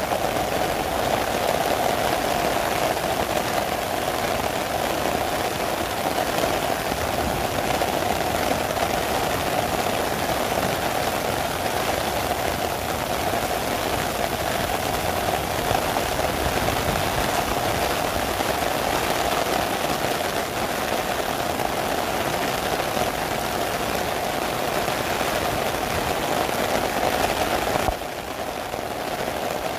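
Heavy rain falling steadily, pattering on an umbrella overhead as a dense, even hiss. The sound drops briefly near the end.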